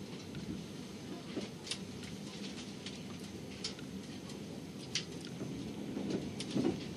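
Passenger train running along the track, heard from inside the carriage: a steady low rumble with a few sharp clicks and rattles scattered through it, and a short cluster of them near the end.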